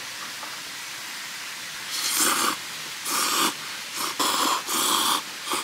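A person slurping ramen noodles and broth in five or six quick noisy draws, starting about two seconds in, over a steady background hiss.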